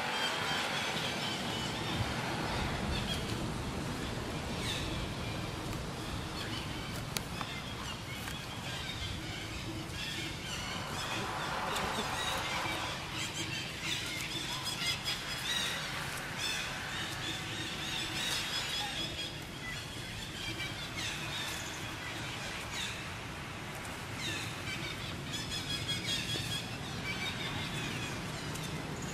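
Forest ambience with many short, high chirps of birds calling on and off over a steady background hiss.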